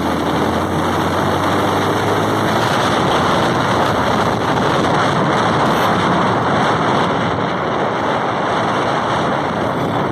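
Motorcycle riding at speed: steady rushing wind on the microphone over the engine running, its note rising slightly in the first two seconds.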